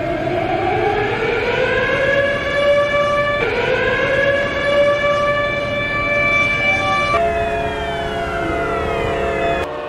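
Civil-defence sirens sounding the nationwide 09:05 moment of silence for Atatürk on 10 November, a loud, slowly rising wail. The pitch jumps twice where the recording cuts between clips. In the last part several tones glide downward together.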